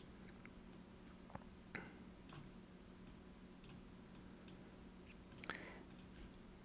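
Near silence: faint steady room hum with a few soft computer mouse clicks, one over a second in, another soon after, and the clearest near the end.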